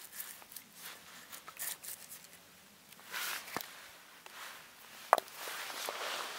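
Steel knife blade scraping and shaving bark off a birch log in a series of short rasping strokes, then a single sharp knock about five seconds in as the knife is set down on the logs.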